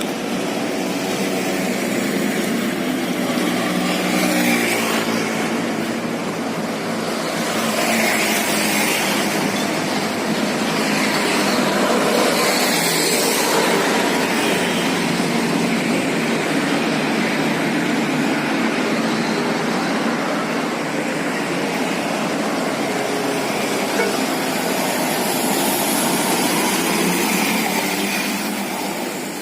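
Large bus engine running as the bus moves off, its pitch shifting in the first few seconds, with steady road and traffic noise.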